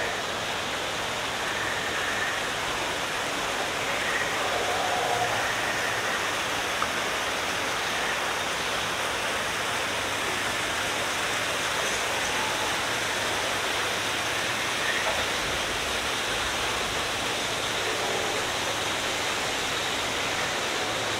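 Steady rush of water pouring down a waterfall.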